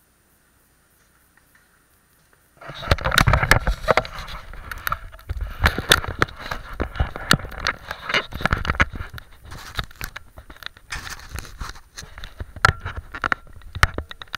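Golf cart's front snow plow blade scraping along a snow-covered driveway, starting suddenly about two and a half seconds in: loud, irregular scraping with many sharp clicks, knocks and rattles.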